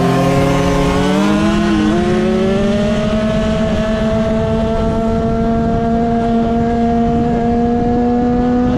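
Dirt bike engine running hard, its pitch climbing over the first two seconds and then holding high and nearly steady.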